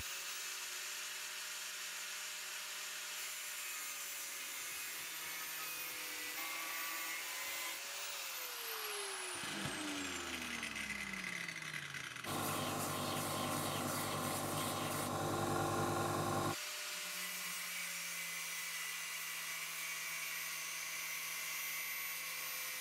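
Angle grinder running, cutting through and grinding the end of a steel threaded rod (M12 all thread) held in a vise. About a third of the way in, the motor winds down with a falling pitch. Past the middle comes a louder stretch of about four seconds, after which the steady running resumes.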